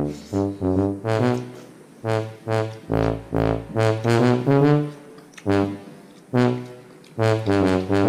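Background music: a brass-led tune of separate, evenly paced notes in short phrases, with brief pauses between phrases.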